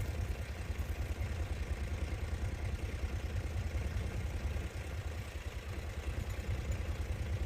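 A vehicle engine running steadily with a low, pulsing rumble.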